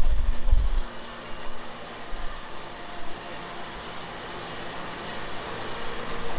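Steady machinery noise of a food-factory conveyor line: an even hum and hiss, with a heavy low rumble for about the first second that then drops away.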